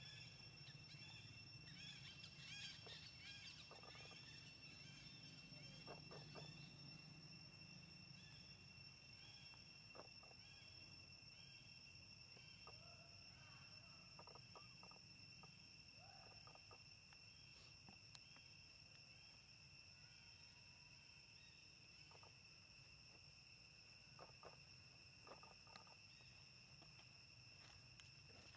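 Near silence: faint outdoor ambience with a steady high insect drone, soft repeated chirps through the first half, and a few light ticks.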